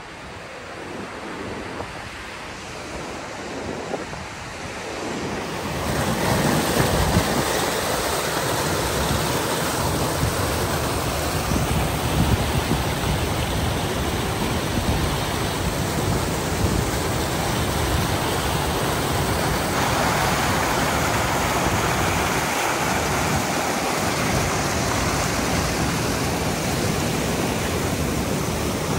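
Mountain stream rushing over boulders: a steady rush of water, quieter at first and much louder from about six seconds in.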